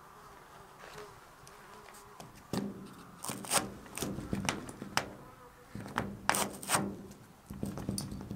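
Sharp metal clicks and clunks as a hand twists and tugs the round handle on the door of an old rusty metal cabinet, trying to open it. The clicks come in two bunches starting about two and a half seconds in, with a short lull between them.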